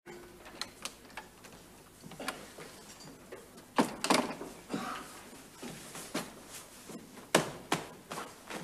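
A series of irregular wooden knocks and bangs, with two louder double knocks about four and seven and a half seconds in.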